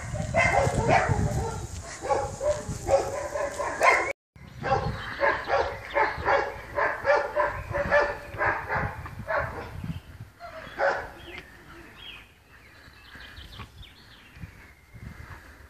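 Young spaniels barking and yipping in play, in quick short bursts, with a brief break about four seconds in. They fade to faint scattered noises after about eleven seconds.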